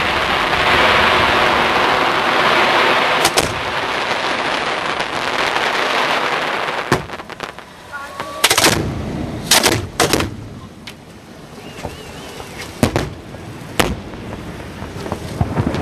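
Display fireworks going off at close range. For the first six seconds there is a dense hissing, crackling spray. Then comes a string of separate sharp bangs as shells fire and burst, two or three close together around the middle.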